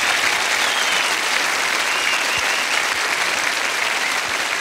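Large audience applauding steadily after a song, with a few whistles rising and falling above the clapping.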